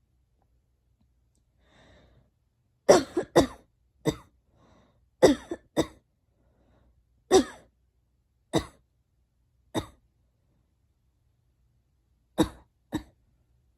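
A girl coughing: about ten short coughs, singly and in quick pairs, with pauses of a second or more between them.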